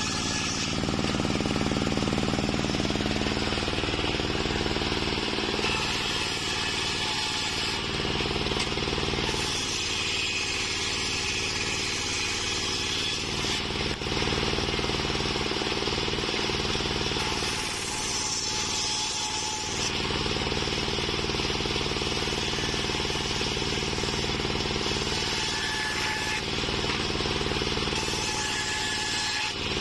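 Homemade engine-driven table circular saw running steadily while its blade rips waru wood planks. The cutting noise swells and eases several times as each board is fed through.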